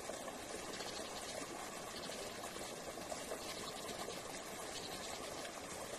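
Small rocky forest stream running over stones: a steady, even rush of water.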